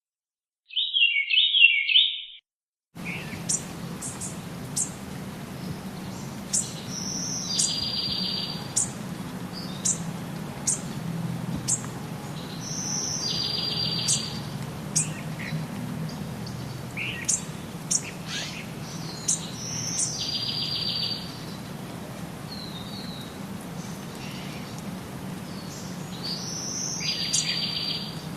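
Forest birds calling: many short high chirps, and one bird repeating a high note followed by a buzzy trill about every six seconds, over a steady low hum. It opens with a brief burst of chirping and a short gap of silence before the ambience comes in.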